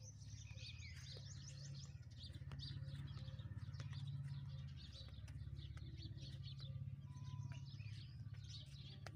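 Small birds chirping in quick, scattered calls, over a steady low hum.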